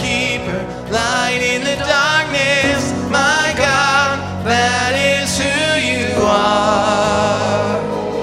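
Worship band music: a singer holds long wavering notes without clear words over sustained band accompaniment. About six seconds in the voice drops back, leaving the instruments.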